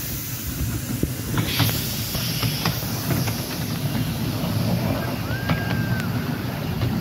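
Miniature railway train running behind a small steam locomotive: a steady low rumble of the carriage wheels on the rails with scattered clicks, and a burst of steam hiss from the locomotive about a second and a half in. A brief high squeal sounds about five seconds in.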